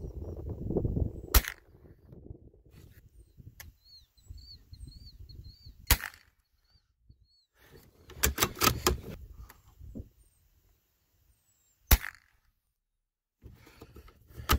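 Rifle shots at gophers: three single sharp cracks about five seconds apart. A cluster of smaller clicks and a low rumble come between the second and third shots.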